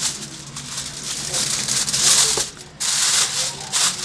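Aluminium foil crinkling and rustling in irregular bursts as hands fold and press it tightly around a baking pan, with a brief lull partway through.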